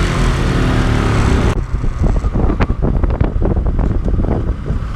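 Motorcycle engine running, with wind rushing over the microphone. About a second and a half in the wind hiss cuts off suddenly, and irregular knocks and rustles follow over the engine's low rumble.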